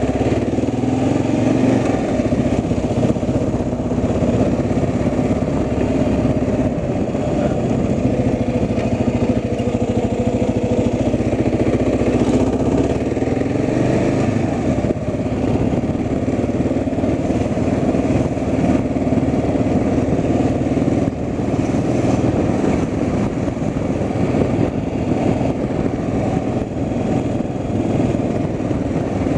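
A car engine and road noise heard from inside a moving car, a steady drone.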